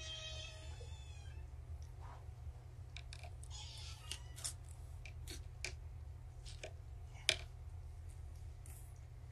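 A kitten mewing, one high call that ends about a second in, followed by scattered light clicks and taps, the sharpest about seven seconds in. A steady low hum runs underneath.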